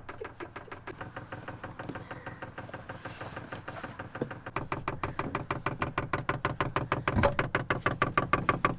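Fuel dosing pump of a 12 V 3 kW diesel air heater ticking rapidly and evenly while it primes the fuel line, over a steady hum. The ticking grows louder about halfway through.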